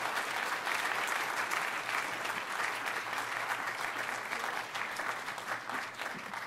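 Audience applauding, a dense patter of many hands clapping that slowly tapers off toward the end.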